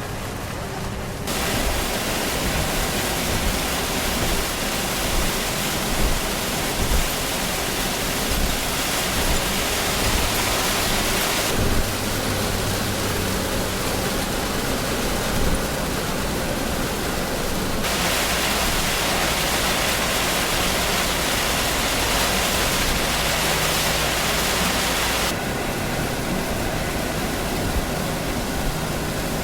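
Heavy rain and tyre spray on a wet expressway while driving: a steady loud hiss whose brightness shifts abruptly a few times.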